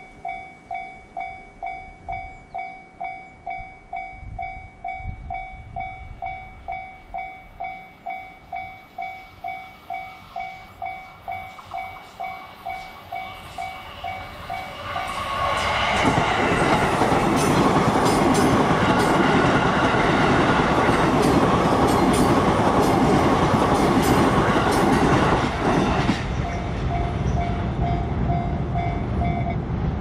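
Japanese level-crossing warning bell ringing in an even ding-ding rhythm about twice a second. About fifteen seconds in, a JR Chuo Line electric commuter train passes close by, loud for about ten seconds with rapid clatter from the wheels and drowning the bell. The bell is heard again after the train has gone.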